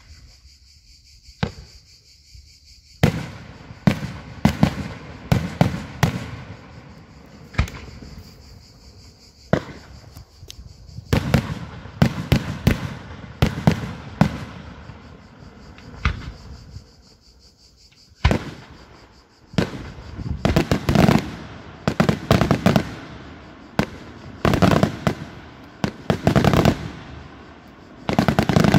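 Daytime aerial fireworks bursting in the sky as sharp bangs and cracks. One lone bang comes about a second and a half in, then a steady run of explosions follows, with dense rapid volleys in the second half.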